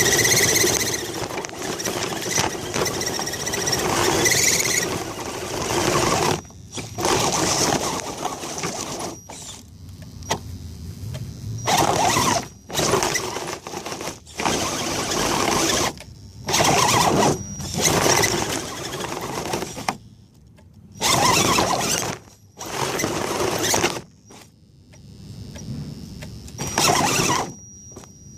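Axial SCX10 RC crawler's electric motor and geared drivetrain whining under throttle, steadily at first, then in a series of short bursts with pauses between.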